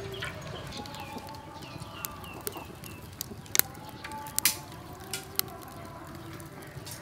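Chickens clucking and small birds chirping, with runs of short falling chirps, under a few sharp cracks from the burning firewood.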